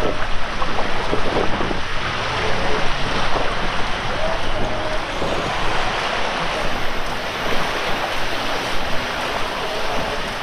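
Waves washing onto a sandy beach, mixed with wind on the microphone.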